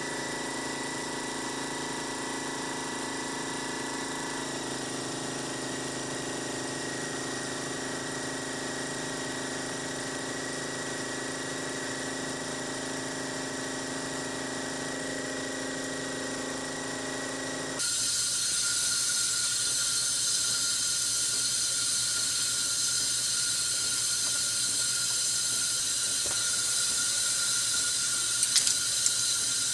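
Steady mechanical hum with several steady tones over a hiss. About 18 seconds in it changes abruptly to a louder, brighter steady hiss with one thin whine. A few light metallic clicks come near the end.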